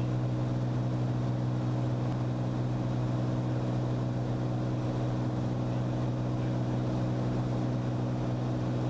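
Cirrus SR22T's turbocharged six-cylinder piston engine and propeller droning steadily in flight, heard inside the cabin.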